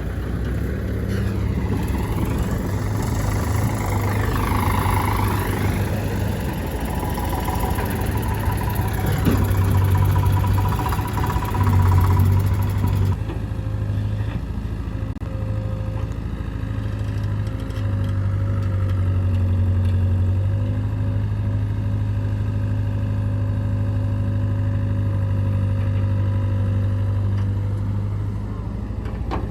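Heavy diesel engines of a backhoe loader and tractor running at work. The engine note rises and falls under load for the first twelve seconds or so, then holds steadier after an abrupt change about thirteen seconds in.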